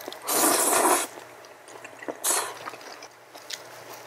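A person slurping udon noodles in a spicy sauce: one loud slurp of about a second, then a shorter one about two seconds in, with faint clicks in between.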